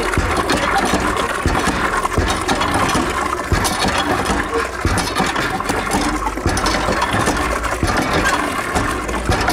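Water poured from a container into an open street gutter, rushing and splashing steadily.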